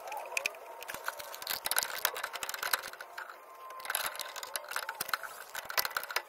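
Irregular light metallic clicks and taps of an open-end wrench working on fittings inside a Jandy pool heater.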